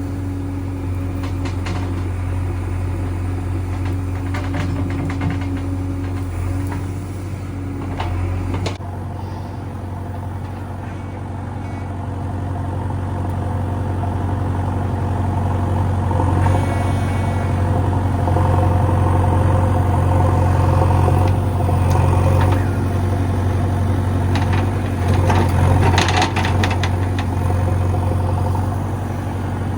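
Diesel engine of a JCB 3DX backhoe loader running while it loads soil, getting louder under load about halfway through, with a few clatters and knocks.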